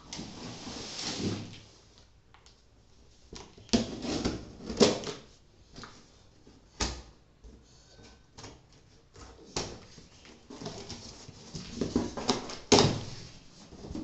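Irregular rustling and scraping with a few sharp knocks: the packed mattress and its wrapping being handled.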